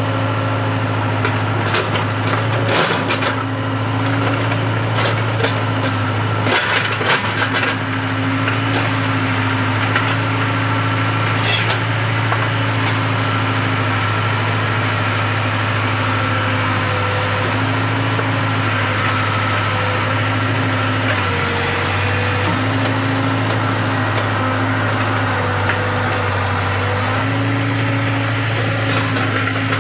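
Backhoe loader's diesel engine running steadily, its pitch dipping briefly twice in the second half. A run of sharp knocks sounds over it in the first several seconds.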